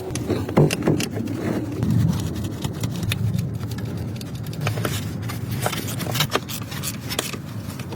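Metal tool clicks and scrapes as the mounting bolts of a BMW rear shock absorber are tightened, over a steady low rumble.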